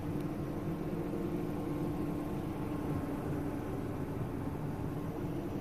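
Idling vehicle: a steady hum and hiss with one faint held tone.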